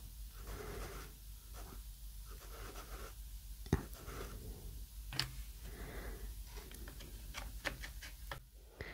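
Chalky soft pastel stick rubbed across paper in repeated scratchy strokes, about one a second, with a few light clicks in between.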